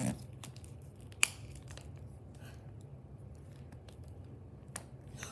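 Small hard-plastic clicks and taps as a wing piece is worked onto a plastic dragon toy figure: a sharp click about a second in and another near the end, over a low steady hum.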